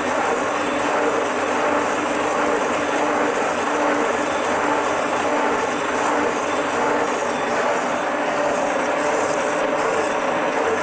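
Milling machine running steadily while its cutter takes a cut along the side of a steel block, with a constant mechanical drone.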